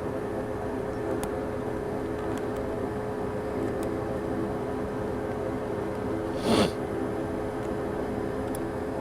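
Steady whirring hum of running equipment, with several steady low tones. About six and a half seconds in, a short loud whoosh.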